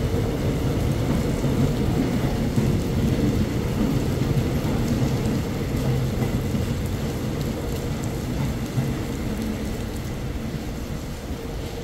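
Steady rain with a low rumble underneath that slowly fades over the last several seconds.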